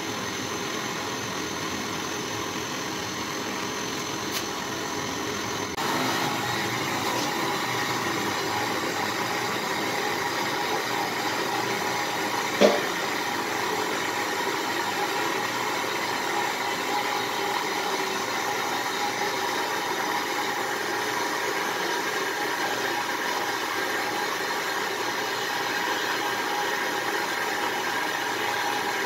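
Handheld butane gas torch burning steadily with a constant hiss as its flame plays into a crucible of silver being melted. The hiss gets a little louder about six seconds in, and a single sharp knock comes about halfway through.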